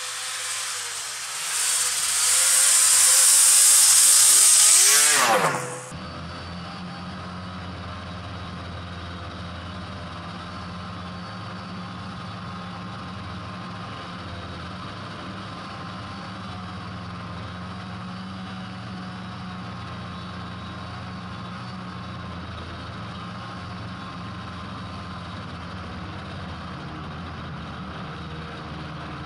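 Snowmobile approaching and passing close by: its high engine whine grows louder, then drops steeply in pitch as it goes past about five seconds in. After a sudden cut, a steady, lower engine drone of a snowmobile heard from on board while riding along a snow trail.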